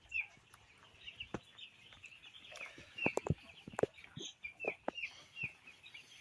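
A flock of five-day-old broiler chicks peeping: many short, high, falling chirps overlapping throughout, with scattered sharp clicks among them.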